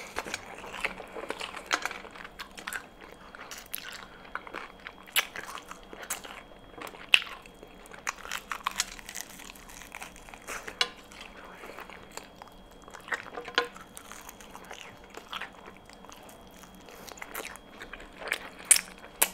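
Close-miked eating of crispy fried chicken: biting in and chewing, with scattered short crunches and crackles.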